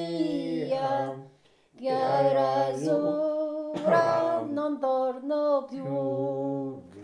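Background music: a singer holding long, drawn-out notes of an Italian song over a steady low accompaniment, with a short break about a second and a half in.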